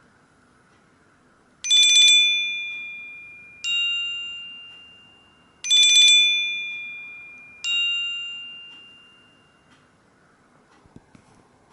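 Nokia Asha 302 stock ringtone: a two-note electronic chime, a high fluttering tone followed by a lower ringing one, each fading away slowly. The phrase plays twice, about four seconds apart.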